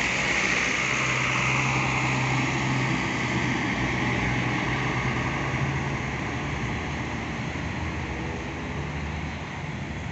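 A large diesel coach passing close and driving slowly away through muddy puddles. Its engine and a hiss from the tyres on the wet road are loudest at the start and fade steadily as it pulls away.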